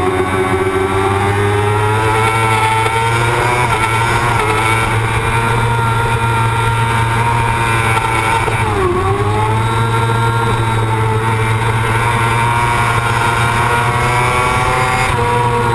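Race motorcycle engine heard from the rider's own bike at high revs, its pitch climbing steadily, dipping sharply about nine seconds in and climbing again, then dipping once more near the end. A steady rush of wind noise runs under it.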